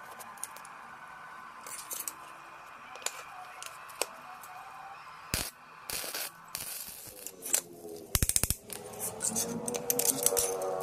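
Steel parts clinking as they are handled, with a short crackling burst of a stick (arc) welder laying a tack weld about six seconds in, and a quick run of sharp clicks about two seconds later.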